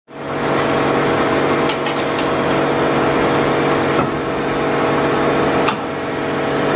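CNC metal-spinning lathe running, turning a 3 mm aluminium blank on its mould: a steady machine hum with a few short sharp clicks, the clearest about four seconds in and just before six seconds.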